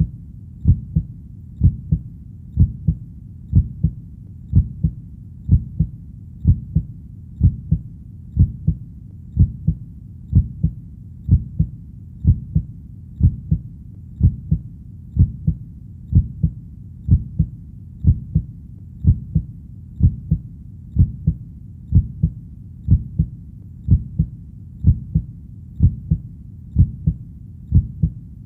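Heartbeat, a steady double thump (lub-dub) repeating about once a second, low and even throughout.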